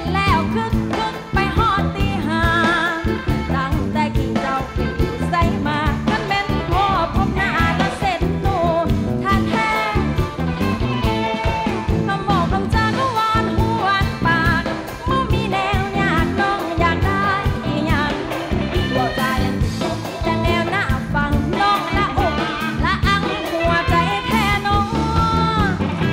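A woman singing a Thai luk thung song live with a full band behind her, over a steady beat.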